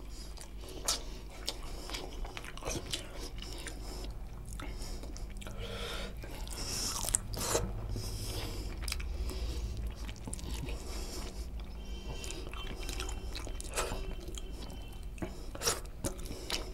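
Close-miked chewing of rice and chicken curry eaten by hand: wet mouth sounds with frequent sharp clicks and smacks.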